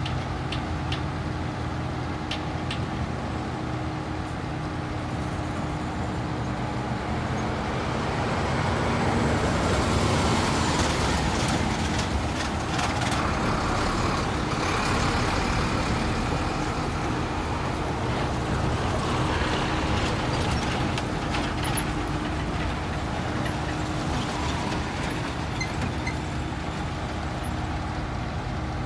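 Heavy dump trucks driving past on a dirt road over the steady hum of a running diesel engine. The sound is loudest from about eight to sixteen seconds in, as a truck passes close.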